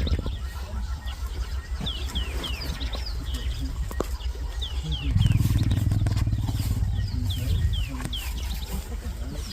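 Birds calling in runs of quick, falling chirps over a steady low rumble, which swells for about three seconds midway.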